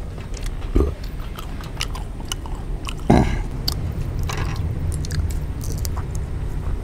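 People chewing and eating chicken biryani, with scattered small clicks and mouth noises and a brief vocal sound about three seconds in.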